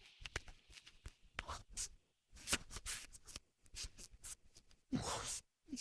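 Raw chicken being mixed with its marinade in a bowl: an irregular run of short scraping and clicking noises.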